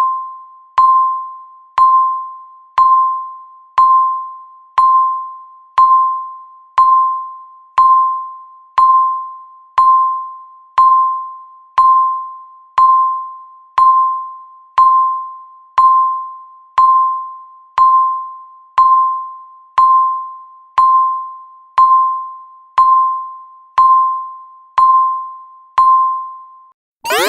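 Countdown timer's electronic beep: one short, single-pitched tone every second, each fading quickly, ticking off the final seconds. The beeps stop near the end as the count reaches zero.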